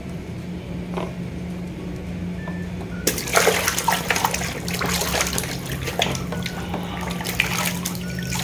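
Hands sloshing a plastic toy vehicle back and forth in a plastic basin of muddy water. Splashing starts about three seconds in and keeps going, irregular and choppy, over a low steady hum.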